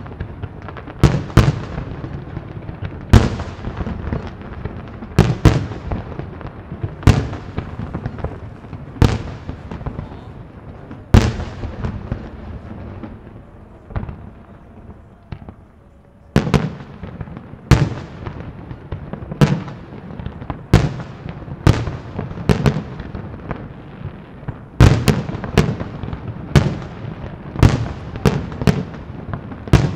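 Aerial firework shells bursting at a distance, sharp bangs every one to two seconds each followed by a rolling echo. The bangs pause for a few seconds about halfway through, then come faster and closer together near the end.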